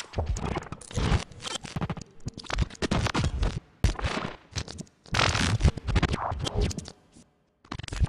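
Experimental noise music: dense, scratchy, crackling textures in irregular bursts, broken by a few short silences, with no steady tune or beat.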